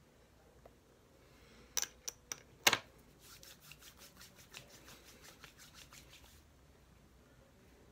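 Four sharp clicks of a glass dropper bottle being handled about two seconds in, the last the loudest. Then, for about three seconds, a quick run of soft pats and rubs, about six a second, as retinol serum is worked into the face by hand.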